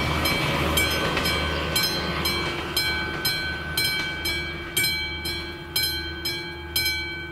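Level-crossing warning bell ringing about twice a second, with the rumble of the passing train dying away beneath it. The ringing stops near the end as the crossing's warning ends.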